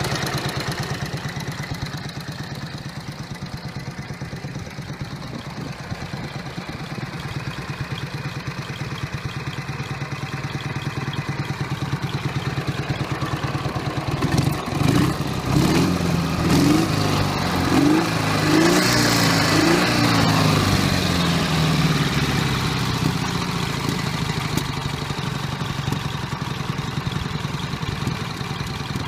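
Ural M67-36 motorcycle's flat-twin engine running, warming up after a start. It idles steadily, and about halfway through its speed rises and falls about five times in quick succession over several seconds before settling back to a steady run.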